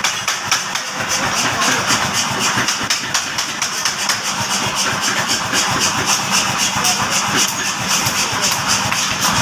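A 50 kg pneumatic power hammer idling with no blows struck: its motor and built-in compressor run with a steady hum and a rapid, even chuffing.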